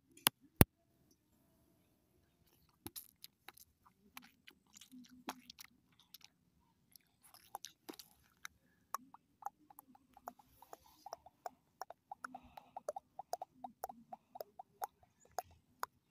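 ASMR trigger sounds: sharp clicks and crunchy taps. Two loud clicks come right at the start, then a short pause, then irregular softer clicks that come faster, several a second, toward the end.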